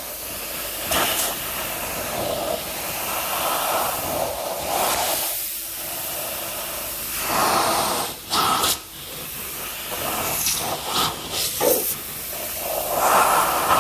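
Loud rushing-air hiss, shifting in tone, with a short dip about five seconds in and a few brief breaks later on.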